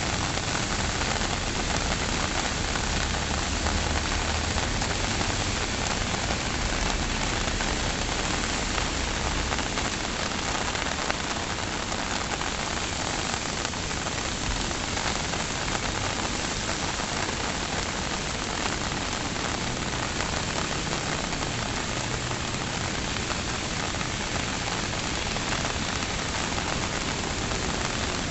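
Rain falling steadily as an even, unbroken hiss, with a low rumble that comes and goes underneath.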